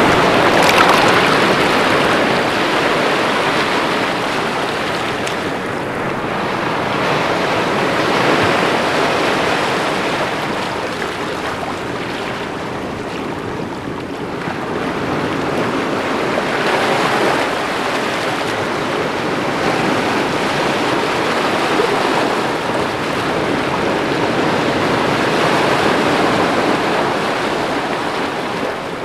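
Ocean surf: sea waves breaking and washing against rocks, a continuous rushing that swells and eases every several seconds.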